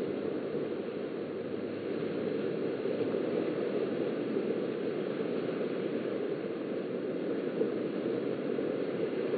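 Beach ambience picked up by a webcam microphone: a steady, dull rushing of small waves on the shore.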